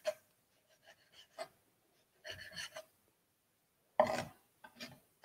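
A few scattered, irregular knife strokes chopping and scraping on a wooden cutting board, faint.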